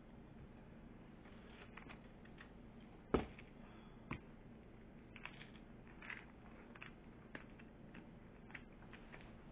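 Quiet, scattered small crackles and clicks of someone eating crunchy cookies at a table, with a sharp knock about three seconds in and a lighter knock a second later.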